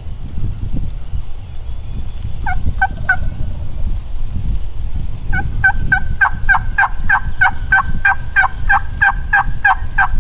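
Turkey yelping: three short yelps, then after a pause a long, even run of about twenty yelps at about four a second, each note breaking from a higher to a lower pitch.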